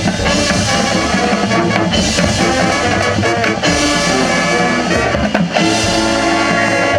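High school marching band playing loud sustained brass chords over drums and percussion.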